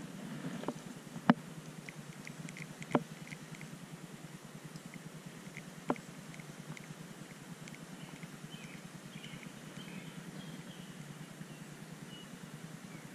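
Abu Garcia baitcasting reel being cranked to retrieve line, a low steady whir broken by four sharp clicks in the first six seconds, the loudest about a second in.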